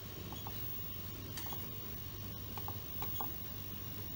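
Grid-tie solar inverter running under load with a low steady hum, while its display buttons are pressed to scroll through readings, giving small soft clicks, mostly in quick pairs, several times.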